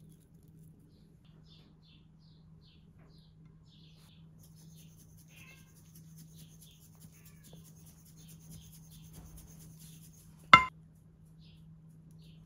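One sharp, ringing clink of kitchenware about ten seconds in, much the loudest sound here. Underneath, a low steady hum and faint scattered chirps.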